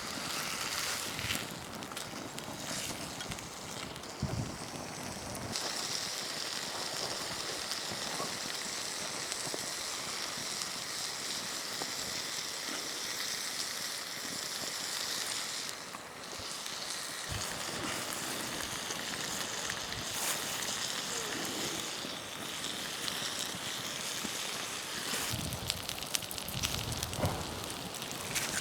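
Wood campfire crackling and hissing, with scattered sharp pops and a brighter high hiss that comes in about five seconds in and falls away around the middle.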